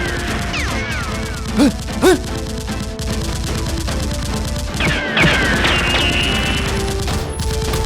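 Rapid automatic gunfire sound effects, a dense stream of shots, over background music. Two louder hits come about one and a half and two seconds in, with sweeping whistle-like glides.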